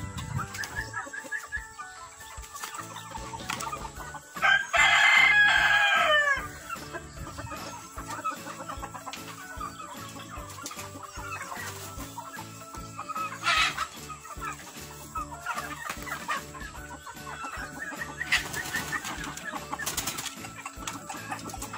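Free-range chickens clucking in a pen, with a rooster crowing loudly once about four and a half seconds in. Shorter rooster calls follow later.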